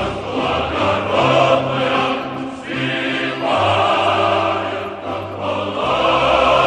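Background music: a choir singing slow, held chords over low bass notes, changing chord about every second.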